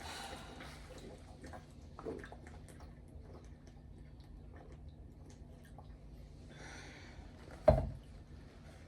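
Close-miked drinking: faint gulping, swallowing and small mouth clicks as a drink is chugged, with a short breath out near the end. Just after it comes one sudden, loud, short low sound that dies away within a fraction of a second.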